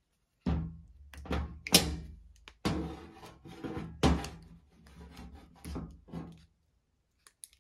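Irregular knocks and scrapes of a small tool prying at the rubber dust boot of a used stabilizer link's ball joint, with the link handled against the bench, stopping about a second before the end.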